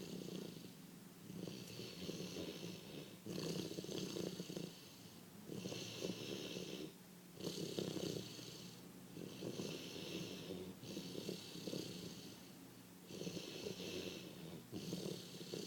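Labrador retriever snoring in its sleep: a steady rhythm of snoring breaths, about one every two seconds, each lasting about a second and a half.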